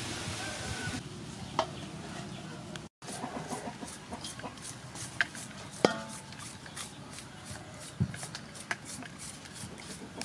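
Knife cutting through a bunch of crisp water spinach stems by hand: a quick run of short sharp snicks, several a second, with an occasional louder knock.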